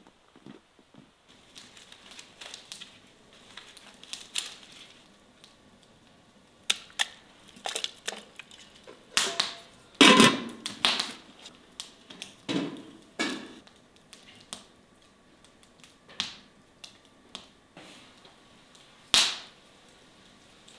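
Kitchen handling sounds: scattered, irregular knocks, clicks and crunches. The loudest cluster comes about halfway through, as a metal pot lid is handled, and there is a single sharp knock near the end.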